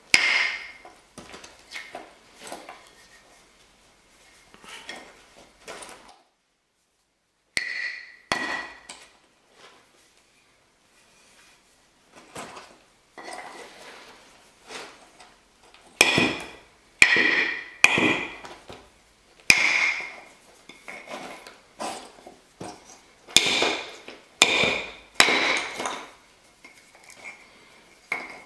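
A rounded hammerstone striking the edge of a flat stone slab to knock flakes off it: sharp, ringing stone-on-stone knocks. They are light and scattered at first, stop briefly about a quarter of the way in, then come as heavier blows about once a second through the second half.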